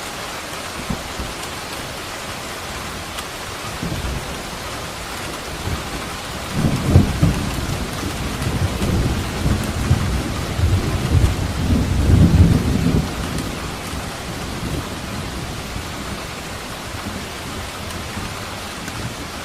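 Steady rain with a roll of thunder that swells about six seconds in, rumbles low for several seconds with its loudest peaks near the start and end of the roll, then fades back into the rain.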